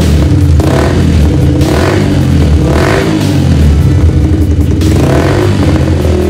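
Yamaha R15 V2's single-cylinder four-stroke engine running and being revved in repeated short blips of the throttle, keeping running now that its wiring fault has been fixed.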